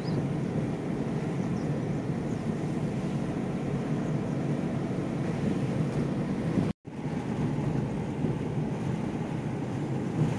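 A car driving on the road: a steady rumble of engine and road noise with wind on the microphone. It briefly drops out to silence about seven seconds in.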